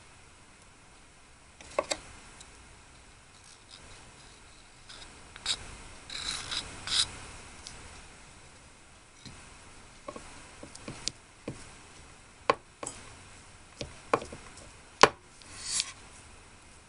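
Scattered small clicks, taps and a few brief scrapes of fine handwork with small tools while making miniature food. The sharpest click comes about fifteen seconds in.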